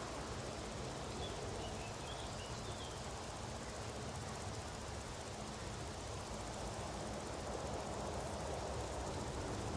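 Steady outdoor background noise, with a few faint high chirps about a second into it.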